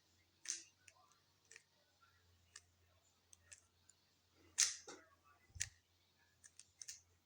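Rubik's cube faces being turned by hand through an algorithm: a series of irregular plastic clicks and clacks, the loudest a little past halfway.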